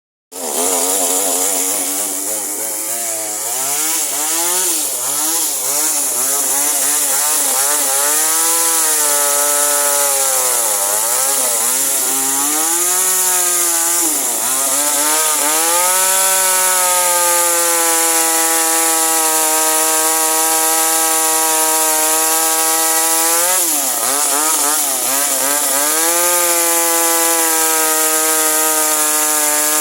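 Toyama TCS25X G2 25.4 cc two-stroke chainsaw running at high revs and cutting wood. Its pitch wavers, sags deeply and recovers several times as the chain is loaded in the cut, then holds steady at full revs.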